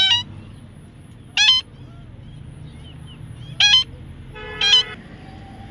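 Parrot giving four short, shrill calls, spaced one to two seconds apart.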